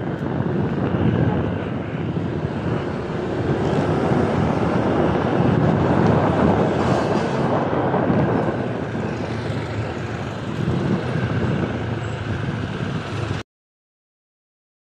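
Wind rushing over the microphone on a moving motorcycle, with the engine and street traffic beneath it. The sound cuts out abruptly to silence near the end.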